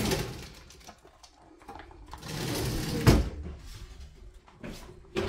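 Metal oven rack and baking sheet being handled as a tray of cookies comes out of the oven: a scraping slide that ends in a sharp metal knock about three seconds in, with another short knock near the end.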